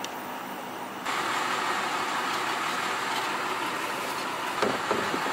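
Delivery box truck's engine idling steadily, jumping louder about a second in, with a few light knocks near the end.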